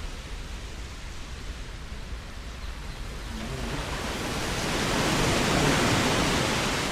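Sea waves surging against the shore, a steady rushing wash that swells about halfway in as a wave comes in and begins to ease near the end.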